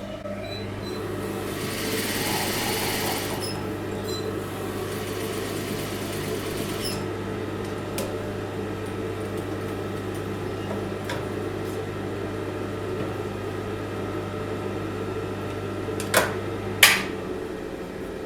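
Electric sewing machine running steadily, sewing a long, loose basting stitch to close the seam. Near the end there are two sharp clicks, and the motor stops.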